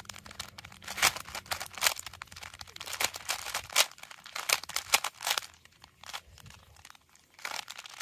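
3x3 Rubik's cube being turned by hand in a timed solve, its plastic layers clicking and clacking in quick, irregular runs, with a short pause about six seconds in. These are the final moves before the cube is solved.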